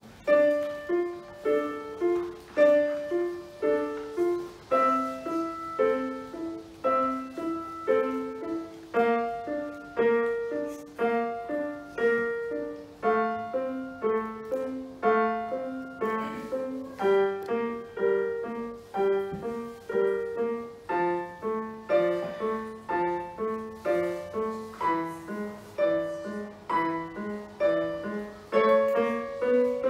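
Digital piano played solo: a simple piece in a steady, flowing pattern of notes.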